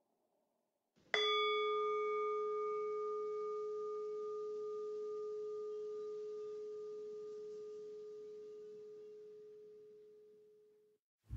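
A single bell-like metallic tone, struck once about a second in and ringing with a slow fade for about nine seconds, its higher overtones dying away first; heavy metal music starts at the very end.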